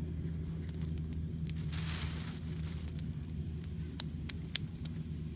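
Small wood fire of sticks crackling, with scattered sharp pops, over a steady low hum. A brief rustling swell comes about two seconds in.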